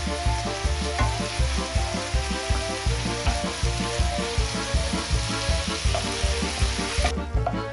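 Mushrooms sizzling as they fry in oil in a pan while being stirred with a wooden spoon. Background music with a steady drum beat plays throughout, and the sizzle cuts off near the end.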